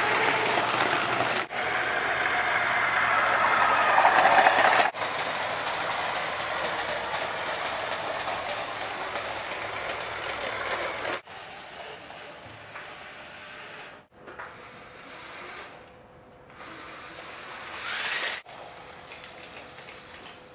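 LEGO 9V Thomas the Tank Engine train running on plastic track, its motor and wheels giving a steady rattling run with clicking over the track joints. It is loudest in the first few seconds as it passes close, and drops to a quieter level after about eleven seconds.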